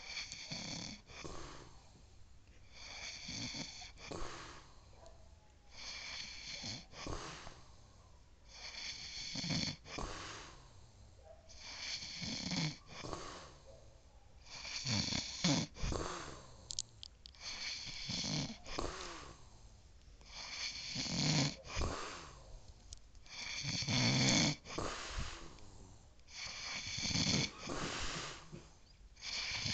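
A man snoring in his sleep, about one breath every three seconds, each pairing a low buzzing snore with an airy hiss.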